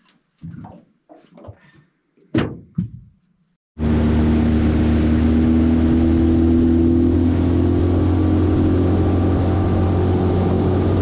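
A single knock about two seconds in. Then, about four seconds in, a small aluminium boat's outboard motor starts abruptly, running at speed as a steady drone with wind and water rush.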